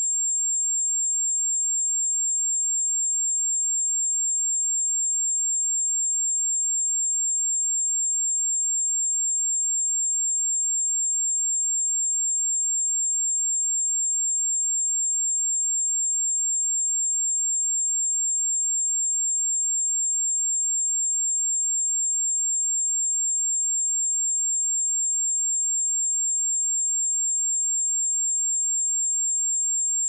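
Steady, unbroken 7424 Hz sine-wave test tone: a single high-pitched whistle held at a constant level.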